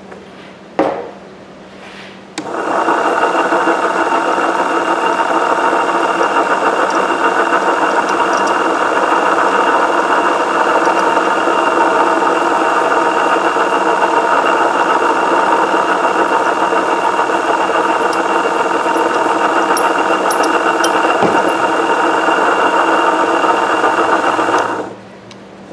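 A coil-winding machine's electric motor starts about two seconds in and runs steadily for about twenty seconds, spinning a voice-coil former as fine enamelled copper wire winds onto it, then stops shortly before the end. A single short knock comes about a second in.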